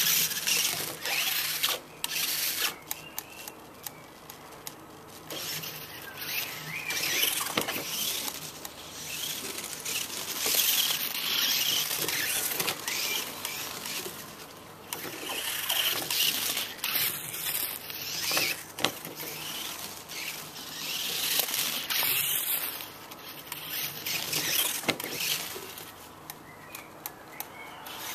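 Mini-Z 4WD RC car driving over stone paving slabs: its small electric drivetrain whirring and the NinjaFlex spiked tyres scrabbling on the stone, with scattered clicks and knocks. It swells and fades several times as the car comes near and goes away.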